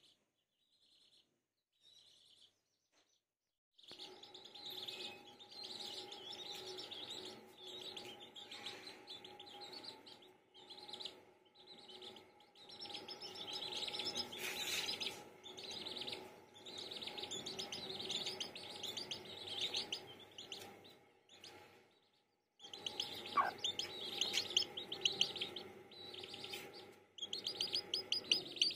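Domestic chicken chicks peeping: a few faint high peeps at first, then from about four seconds in a dense, continuous chorus of rapid high-pitched peeps, with a brief pause near the end.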